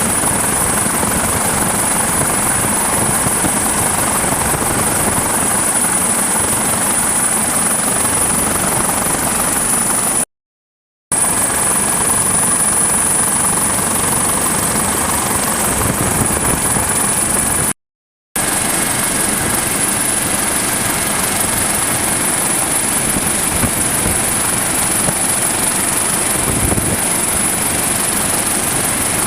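MH-65 Dolphin helicopter running steadily, a dense rotor-and-engine noise with a high whine held over it. The sound cuts out briefly twice, about ten and eighteen seconds in.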